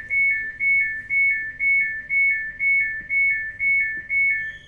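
Electronic two-tone signal inside a moving train carriage: a high note dropping to a lower one, repeated about twice a second for about ten cycles, then stopping abruptly near the end.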